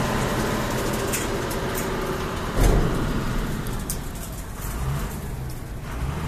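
Truck engine running steadily while the tipper body stands raised, with one heavy thump about two and a half seconds in.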